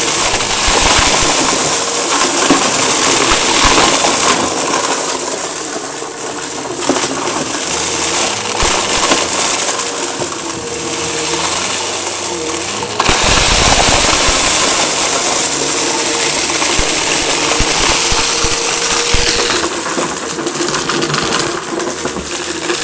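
Eureka vacuum cleaner running with a steady motor hum, with many crackling clicks of crunchy debris being sucked up. The sound shifts abruptly about halfway through.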